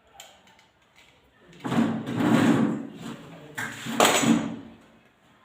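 Two loud, rough scraping noises from hands working: the first a little over a second long, the second shorter, about a second and a half later.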